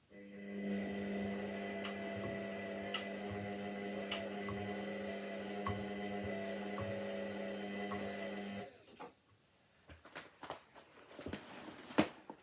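Washing machine giving a steady electric hum that starts at once and cuts off suddenly about two-thirds of the way through, followed by a few scattered clicks and knocks.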